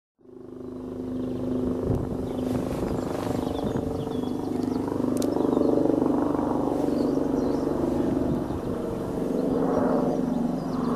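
Steady drone of a distant diesel locomotive's engine, swelling slightly about halfway through as the train approaches.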